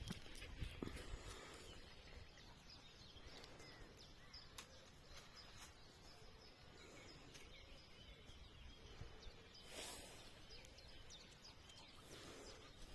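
Faint countryside ambience with scattered faint bird chirps. A brief rustling swell comes near ten seconds in.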